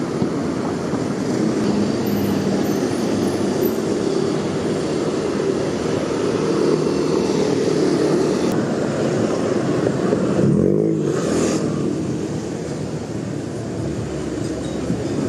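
Steady road traffic from cars and motorbikes, with one engine passing close about two-thirds of the way through.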